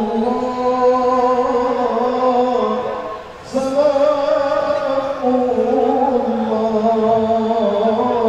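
Men's voices chanting an Islamic devotional chant in long, drawn-out held notes. The chant dips briefly about three seconds in, then carries on.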